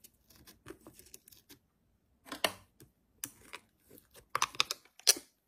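Fluffy white slime being poked, pressed and scooped with a plastic spoon, making a scatter of small sticky clicks and crackles, with a few louder ones in the second half.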